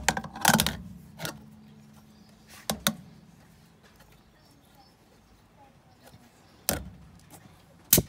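Scattered sharp clicks and knocks of a compression tester being handled and its hose screwed into a spark plug hole: several in the first three seconds, then a quiet stretch, then two more near the end. The engine is not running or cranking.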